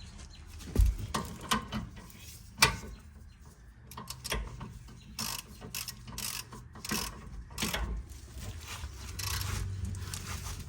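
Hand ratchet clicking in short runs as bolts are turned on a car's brake caliper, with a few sharp metal knocks from the tools.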